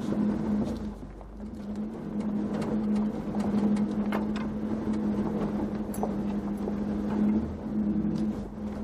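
4x4 truck's engine running steadily at low speed, heard from inside the cab, with scattered knocks and rattles as it rolls over rough dirt.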